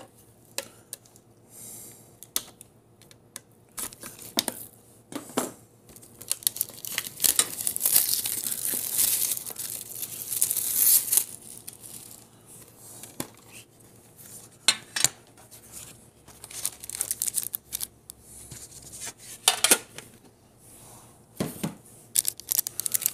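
Plastic shrink-wrap crinkling and tearing in irregular spurts, loudest about a third to halfway through, with small clicks and taps from handling the wrapped trading-card tin and cards.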